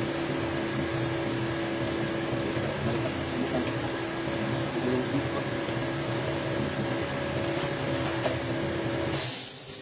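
Steady mechanical hum of a running motor or fan, holding a few steady tones. It ends about nine seconds in with a brief hiss, and the sound falls away.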